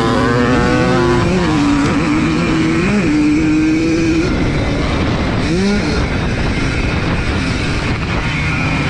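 1982 Yamaha YZ100 two-stroke single racing on a motocross track, its engine pitch climbing and dropping several times with throttle and gear changes, over steady wind noise.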